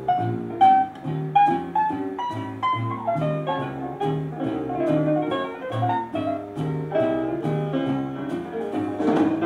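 Big-band jazz recording playing from a vinyl LP over loudspeakers: a piano-led passage over a walking double bass, with light cymbal ticks keeping time.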